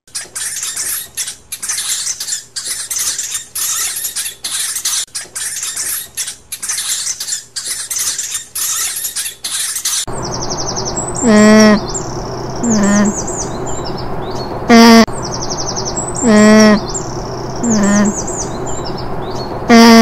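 A hamster scrabbling in wood-shaving bedding: a quick run of dry, scratchy rustles. About halfway through this gives way to six loud, short, wavering calls from alpacas, with faint high twittering underneath.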